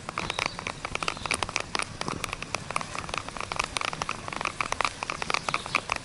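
Bicycle tyres rolling over a dirt trail littered with dry leaves and twigs: a dense, irregular crackle and patter of small clicks.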